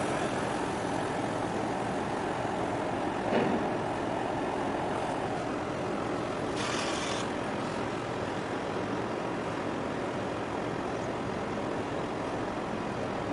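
Steady engine drone and water wash from a small harbour boat, heard on board as it moves along the waterfront, with a short knock a few seconds in and a brief hiss near the middle.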